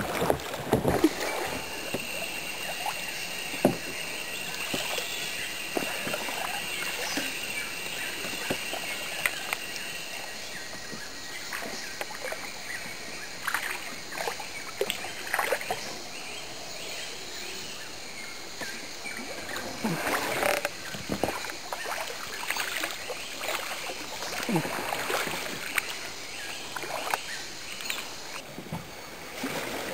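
Kayak paddles dipping and splashing in river water in irregular strokes and drips, over a steady background hiss. A thin steady high tone runs through roughly the first third.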